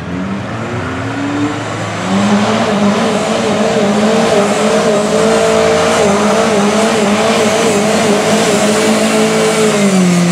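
Lifted Suzuki Samurai mud rig's engine held at high revs while its big tires churn through a flooded mud hole, with mud and water splashing. The revs climb about two seconds in, waver slightly while held, and drop near the end.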